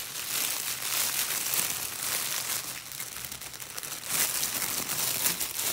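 Thin clear plastic produce bag crinkling as it is handled and a paper-wrapped fish is slid into it, louder about a second in and again from about four seconds in.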